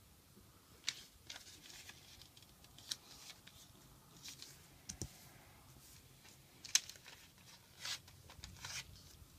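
A sheet of origami paper being folded and creased by hand: faint scattered crinkles and short crisp crackles as the folds are pressed, with longer rustling swishes near the end.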